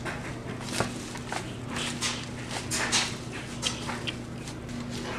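Wet, freshly washed ponnanganni (dwarf copperleaf) leaves rustling and swishing as hands toss them around in a plastic bowl, a run of irregular soft scuffs. The tossing shakes off excess water after washing. A faint steady low hum runs underneath.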